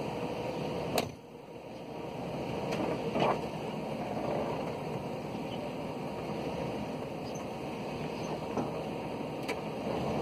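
Full-size SUV's engine running steadily at low revs as it is backed slowly up to a camper hitch, with a couple of light clicks about one and three seconds in.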